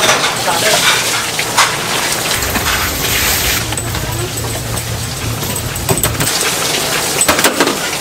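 Water splashing and streaming as cooked noodles are lifted from a pot of boiling water in a long-handled mesh strainer and dunked into a basin of water, with sharp knocks of the metal strainer. A low hum comes in for a few seconds in the middle.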